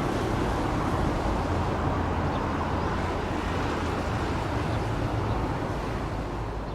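Steady low rumble and rushing noise of a passing vehicle, slowly fading toward the end.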